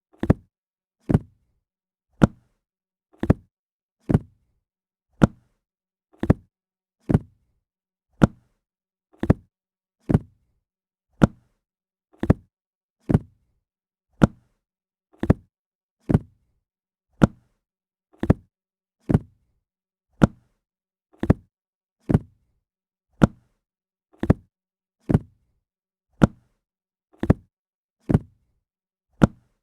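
A book dropped flat onto a hard surface: a short dull thud, the same drop repeated about once a second.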